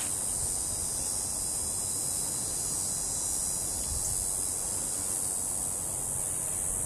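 Steady, high-pitched insect chorus singing without a break, with a low even rumble underneath.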